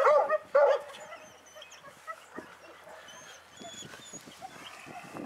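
A young puppy gives a few loud, high yaps in the first second while it tugs at a burlap rag. After that there are only quieter scuffling sounds.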